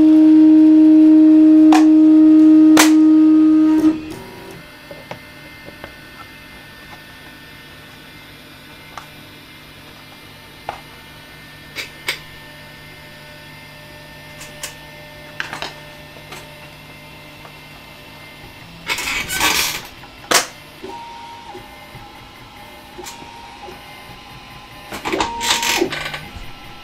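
Original Prusa i3 MK2 3D printer's stepper motors moving the bed and print head as a print starts. A loud steady whine runs for about four seconds, then comes a quieter run of short ticks and brief whirring moves, with two louder bursts of movement in the last third.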